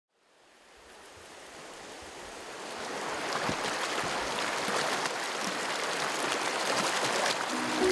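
Rushing water, like a stream or surf, fading in from silence and growing steadily louder. A melody starts near the end.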